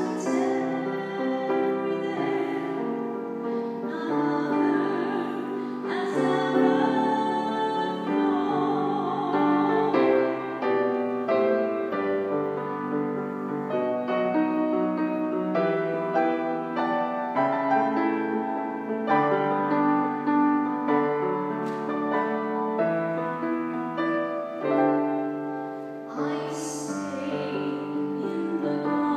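Music: piano accompanying an operatic-style singing voice with vibrato.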